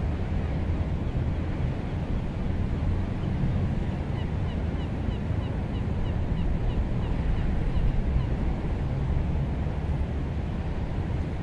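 Ship's engine rumbling low and steady as it moves out of port, with wind and water noise over it. A run of short high chirps, a few a second, sounds from about three to eight seconds in.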